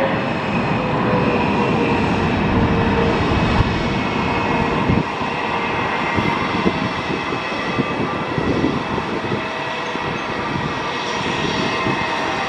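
Jet noise from a Boeing 777-300ER's GE90-115B turbofans at approach power on landing: a steady rush with high whining fan tones. A lower tone slides slightly down in pitch over the first few seconds.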